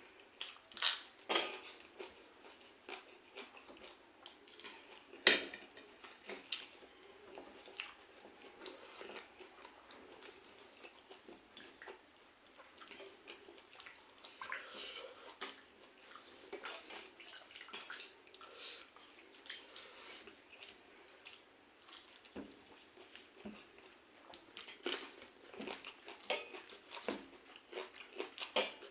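Mukbang eating sounds: chewing pakhala bhata (rice in water) with fried small fish, with scattered small clicks and clinks from the plate. A sharp clack about five seconds in is the loudest sound.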